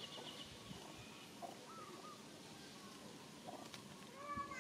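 Faint, scattered short chirping and cooing animal calls with gliding pitch, and a louder call near the end.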